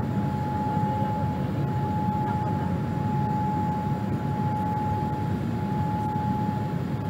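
Steady cabin roar of a Boeing 787-8 airliner in its climb after takeoff, jet engines and airflow heard from a window seat over the wing, with a steady high-pitched tone over it.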